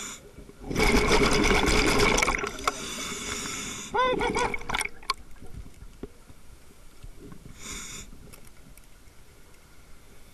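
A scuba diver breathing through a regulator, picked up by a camera built into the dive mask. About a second in comes a loud rush of exhaust bubbles lasting about a second and a half, and a short gurgle follows about four seconds in. After that the breathing is quieter, with a faint hiss near eight seconds.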